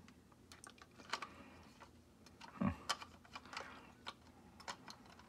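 Scattered light plastic clicks and taps from the shell and base of a Microsoft Surface Precision Mouse being handled and pressed together during reassembly, with one duller knock about two and a half seconds in.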